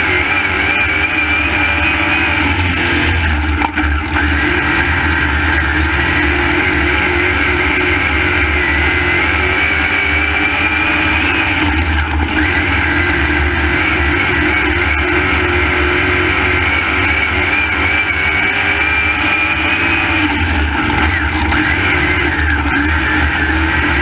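Crate late model race car's V8 engine running hard at racing speed, heard from inside the cockpit, its pitch rising and falling gently as it goes through the turns, with a brief drop about four seconds in.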